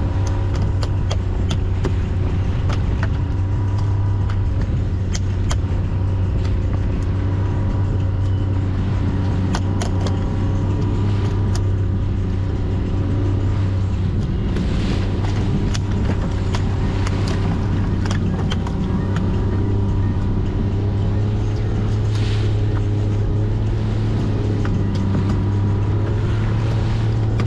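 A small fishing boat's motor running steadily at trolling speed as a low, even drone, with scattered short knocks throughout.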